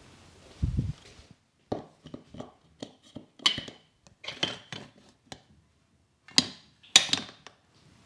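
Hands striking a person's head and shoulders in a percussive Indian massage: a series of sharp, irregular slaps and claps, with a dull thump just under a second in and the loudest slaps near the end.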